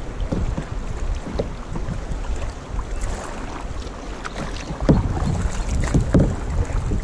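Water sloshing against a plastic kayak hull while wind buffets the microphone. A few louder splashes come in the second half, as the paddle dips into the water.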